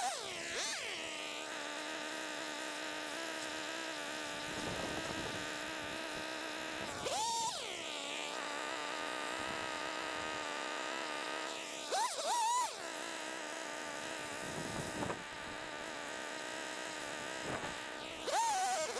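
Small two-stroke engine of a handheld cutting tool, likely a chainsaw, running steadily with a buzzing note. Its pitch swoops up and back down about three times as it is revved into the cut.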